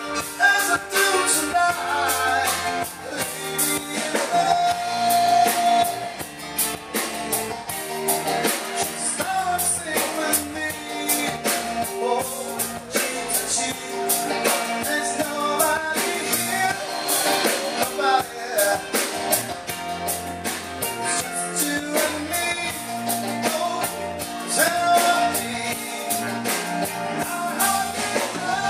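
Live band playing an upbeat song with electric guitar, keyboard and a steady drum beat, with a singer's voice over it.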